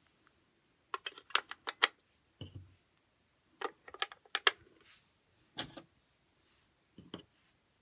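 AA batteries being pressed and snapped into the plastic battery compartment of a ball-shaped Luna P kitchen timer. Several clusters of sharp clicks and taps, with one duller knock about two and a half seconds in.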